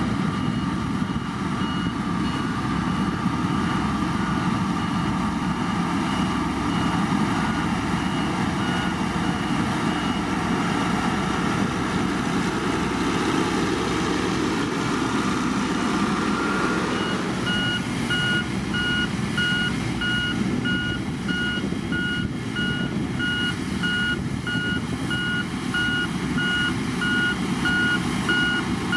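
Heavy diesel motor grader running steadily while working, with a reversing alarm beeping at an even rate. The beeping is faint at first and becomes much louder a little past the middle.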